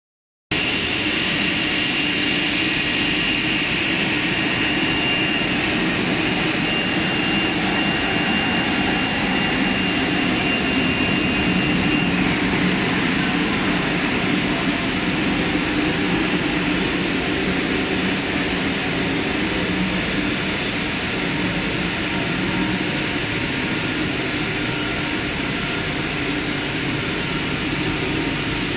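Large HDPE pipe extrusion line running: a steady, loud, even machine noise with a faint high whine that stops about twelve seconds in.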